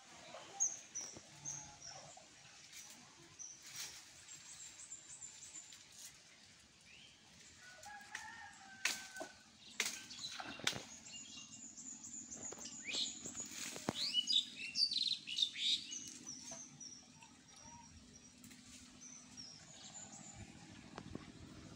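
Birds chirping and calling outdoors, with a few short, sharp sounds mixed in; the calls are busiest a little past the middle. A low steady hum sets in about halfway through.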